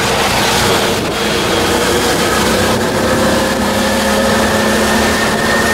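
Auto-rickshaw (tuk-tuk) engine running under way, heard from inside the open passenger cab, over a steady hiss of tyres on wet road. The engine note rises slightly in the second half.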